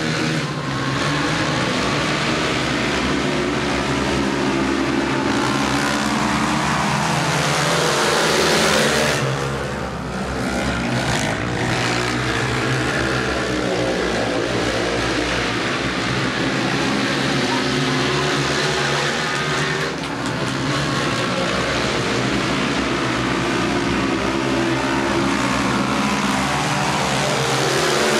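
Engines of four racing quads running together as the pack laps a dirt speedway track, swelling and falling as they pass. The sound dips briefly twice.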